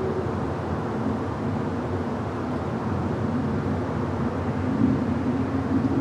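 City park ambience dominated by a steady rumble of surrounding traffic, with a faint low engine hum that swells in the second half.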